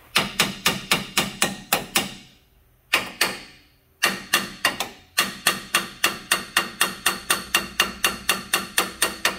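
Hammer lightly tapping on a truck's front lower control arm, a quick run of taps about four a second that breaks off twice briefly, near two and four seconds in. Each tap rings shortly in the metal. The tapping works the arm into its new mounting bracket.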